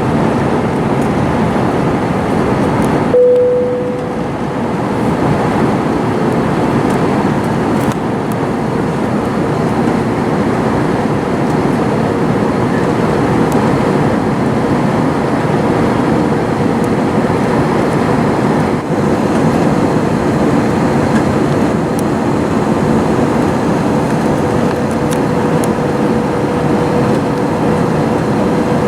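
Cabin noise inside a Delta Airbus A321 during arrival: a steady roar of engines and airflow. About three seconds in there is a brief swell, after which a steady hum runs underneath the roar.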